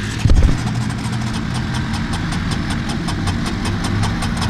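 Four-wheeler's electric starter cranking the engine again and again without it catching, a steady whir with about five clicks a second: the ATV won't start. A loud thump comes just before the cranking.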